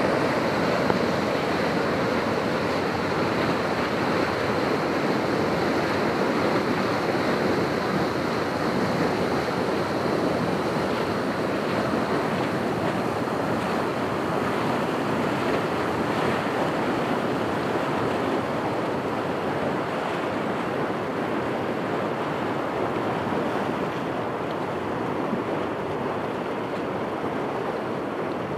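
Water gushing out of a concrete culvert opening and churning into white water: a steady, loud rushing sound.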